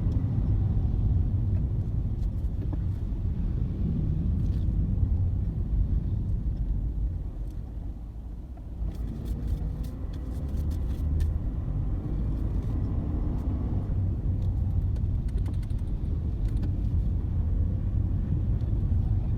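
Steady low rumble of a motor vehicle, dipping briefly about eight seconds in, with faint scattered clicks.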